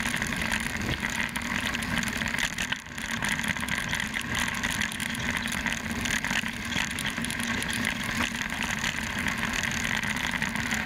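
Mountain bike rolling fast over a loose, rocky dirt trail: steady tyre-on-gravel noise with small rattles and clicks from the bike, heard through a handlebar-mounted action camera with wind on the microphone. The noise dips briefly just under three seconds in.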